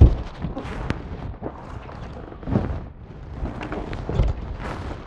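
Cardboard product boxes being handled and shifted on a steel desk: a thump right at the start, more thumps about two and a half and four seconds in, with cardboard scraping and rustling between them.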